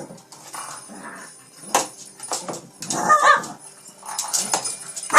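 Shih Tzu whining while it worries a toy, with one short high whine about three seconds in amid scattered clicks and scuffles.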